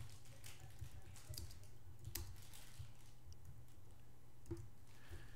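Faint, irregular keystrokes on a computer keyboard as text is typed, with one sharper click about two seconds in.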